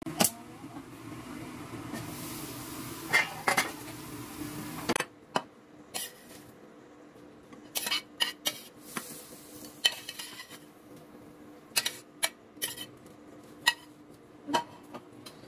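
Cookware and utensils clinking: a pot lid and metal utensils knock against a stainless steel pot and a ceramic plate in scattered sharp clinks. A steady hum runs under them for about the first five seconds, then stops.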